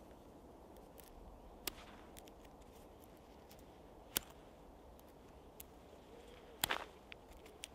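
A few sharp clicks, then a short rasping scrape about two thirds of the way in, as a British ration-pack match is pulled through its folded strike paper to try to light it.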